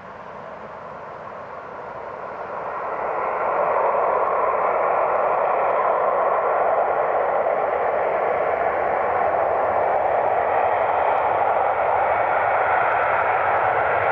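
The four turbofan engines of a Boeing 747 freighter at takeoff power on the runway. The jet noise rises over the first four seconds and then holds loud and steady as the jumbo rolls toward the listener.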